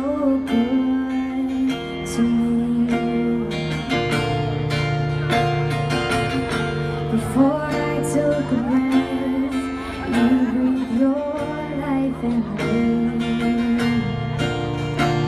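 Live song with acoustic guitar strumming under a singer's held, gliding notes.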